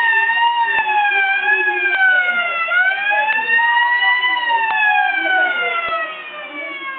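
A siren wailing: one loud tone that slides slowly down, dips about three seconds in, climbs back up, then falls gradually and grows quieter near the end.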